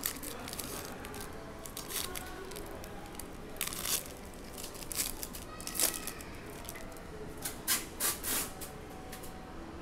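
A Donruss basketball card pack's wrapper being torn open and crinkled by hand, with the cards inside handled, in several short rips and rustles.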